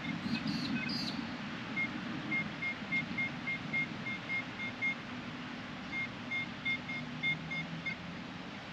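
Metal detector giving short, evenly spaced high-pitched beeps, about three a second, in two runs of a few seconds each, the signal of a metal target under the coil. Two brief higher chirps come just before the first run.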